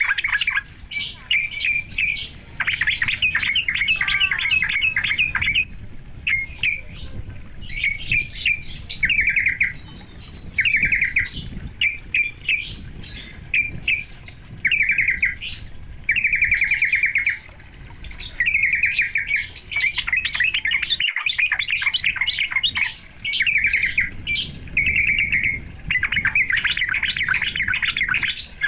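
A songbird singing in repeated bursts of rapid chattering notes, each about a second long with short gaps between, over a low steady rumble. This is a lure recording meant to rouse yellow-vented bulbuls (trucuk).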